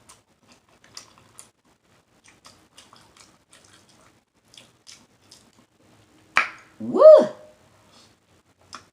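Close-miked eating: soft wet mouth clicks and lip smacks scattered throughout, with one loud sharp smack about six seconds in. Right after it comes a short loud 'woo!' that rises and falls.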